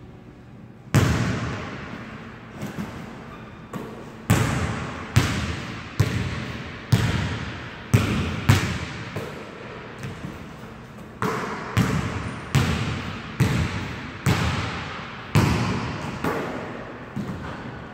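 A basketball bouncing on a hardwood gym floor, dribbled at about one bounce a second, with each bounce ringing and echoing in the large hall. The first and loudest bounce comes about a second in.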